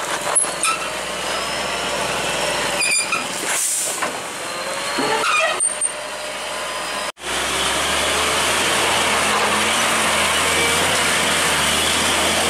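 Heavy truck's diesel engine running under load as the container-laden truck crawls over a rutted dirt road. The sound drops out abruptly about seven seconds in, then the engine runs louder and steadier.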